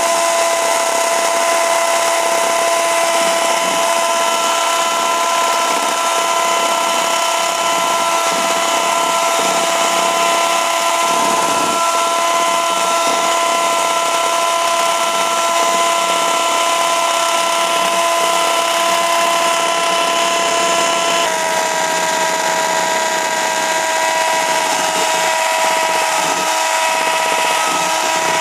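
Electric hand mixer with twin beaters running steadily at speed, whipping eggs and powdered sugar into a foamy batter on the way to the ribbon stage. A steady motor whine whose tone shifts slightly about three-quarters of the way through.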